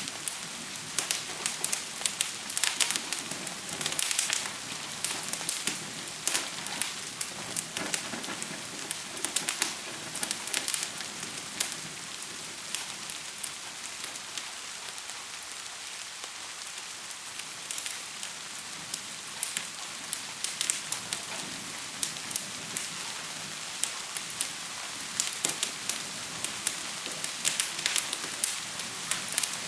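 Steady hiss of gentle rain with the sharp pops and crackles of a fire over it; the crackling is busy for the first dozen seconds, thins out through the middle and picks up again near the end.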